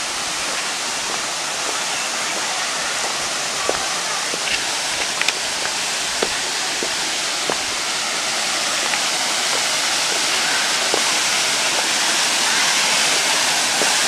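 Waterfall rushing: a steady, even noise of falling water that grows gradually louder. A few light ticks sound midway.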